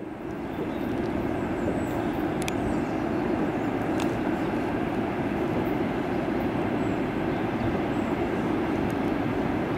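VL11M DC electric locomotive hauling a freight train, approaching: a steady rumble of the locomotive and wagons on the rails, with a couple of faint clicks.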